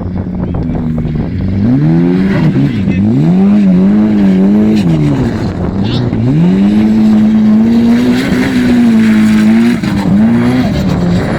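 Formula offroad car's engine revving hard, its pitch surging up and dropping several times, then held high for a few seconds before falling away near the end.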